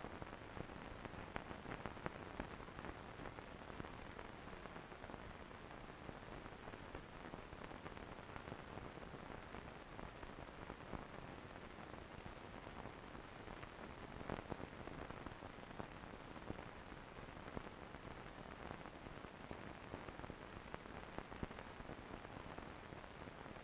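Steady low hiss with scattered faint clicks and crackles, the background noise of a silent amateur film transfer; no sound of the trains is heard.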